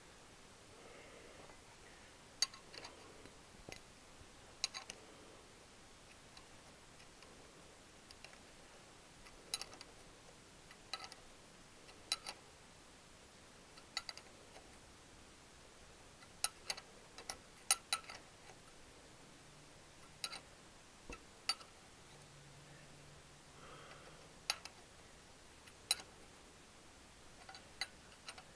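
Irregular sharp metallic clicks and clinks of hand tools working a puller fitted to an alternator rotor, some in quick pairs or small clusters, over a faint hiss.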